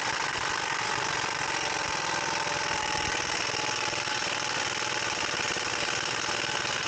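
Impact wrench hammering continuously as it runs down and tightens a bolt on a front wheel bearing hub assembly.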